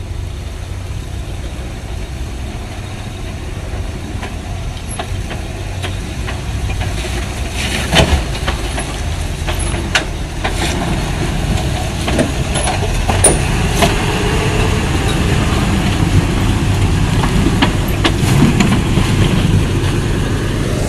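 Land Rover Defender crawling slowly over rocks off-road, its engine running low and steady and growing louder as it comes close. Several sharp knocks from the vehicle working over the rock are heard in the middle.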